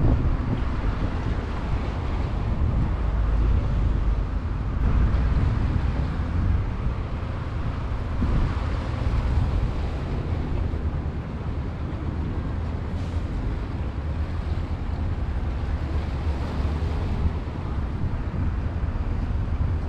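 Wind buffeting the microphone, a steady low rumble that rises and falls, over the wash of open water.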